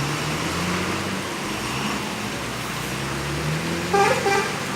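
Motor vehicle engine running with a steady low hum, with a short higher-pitched sound about four seconds in.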